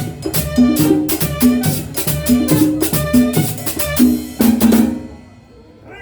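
Dance music with a steady drum beat and a repeating bass line, cutting off about five seconds in.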